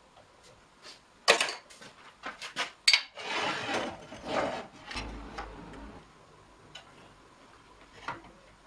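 Hand handling of a wooden workpiece and a metal lathe's steady rest: sharp knocks and metallic clinks, the loudest about a second in and around three seconds, then a scraping rub as the wood is seated against the steady rest's rollers, with a few lighter clicks near the end.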